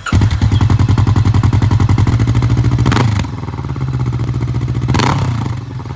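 Kawasaki Vulcan S 649cc parallel-twin engine running steadily on a lift through an aftermarket slip-on muffler, with its firing pulses even. The note eases slightly about three seconds in.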